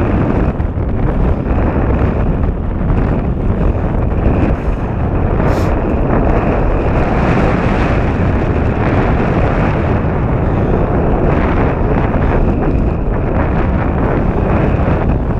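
Wind buffeting the microphone: a loud, steady low rumble with no break.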